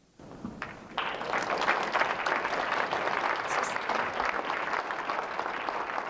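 Audience applauding: a few claps start just after the beginning, swell into full, steady applause about a second in, and carry on.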